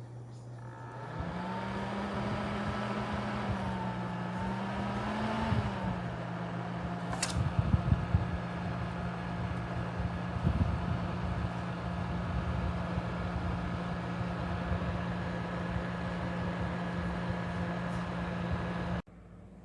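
Small electric fan motor of a mini evaporative air cooler running with a steady whirring hum that wavers in pitch for the first few seconds and then holds. There is a sharp click about seven seconds in and some low rumbling bumps after it. The hum cuts off suddenly near the end.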